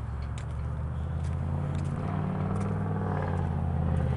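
A vehicle engine running at a steady idle, growing gradually louder, with a few faint clicks over it.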